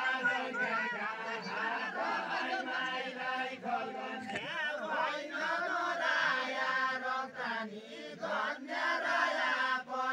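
Large group of men singing a Deuda folk song together, a chant of many voices.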